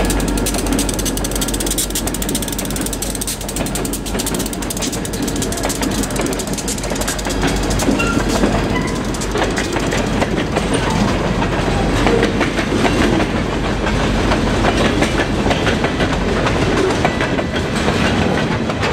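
Freight train rolling past close by: a diesel locomotive going by at the start, then covered hopper cars, their steel wheels clicking and clattering in a dense steady stream over the rail joints, with a low rumble that eases off near the end.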